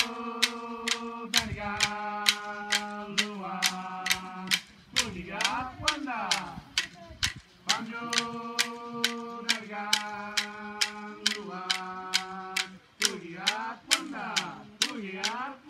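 Chanted song: a voice holds long steady notes, breaking into sliding phrases twice, over a steady beat of sharp clicks about twice a second.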